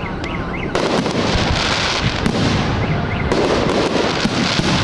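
Aerial firework shells bursting one after another: a heavy burst about a second in and another just after three seconds, with many sharp cracks and crackling between them.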